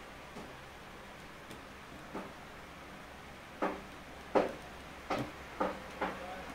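Hands handling a cardboard figure box: a series of short knocks and clicks, about six of them, coming more often in the second half, over a faint steady hum.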